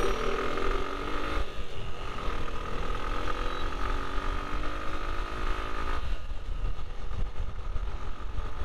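Suzuki Gixxer's single-cylinder engine running as the motorcycle slows from about 40 to 16 km/h. Its note drops, climbs gently from about a second and a half in, then drops again near the end, over a steady low rumble.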